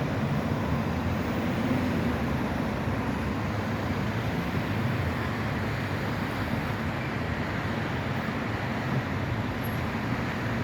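Steady low rumble of city street traffic by a tram line, with no distinct events.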